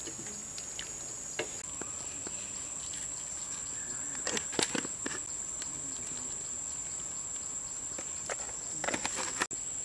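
Insects trilling steadily in a high tone, with scattered pops and crackles from the wok of prawn soup simmering over a fire. The crackles come in two louder clusters, about four and a half and nine seconds in.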